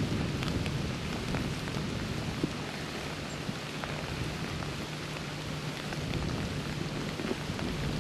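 Freezing rain falling in a leafless woods, an even patter with many small scattered ticks of ice hitting branches and dry leaves.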